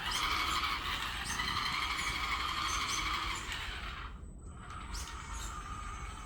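Small unmanned ground vehicle's electric drive motors whining as it drives under gamepad control, cutting out about four seconds in and then resuming more quietly.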